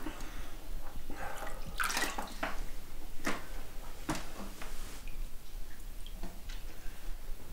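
Sips and slurps of liquid drunk from a glass bowl, with the liquid sloshing and dripping as the bowl is passed and tipped. The sounds come as a series of short, irregular noises.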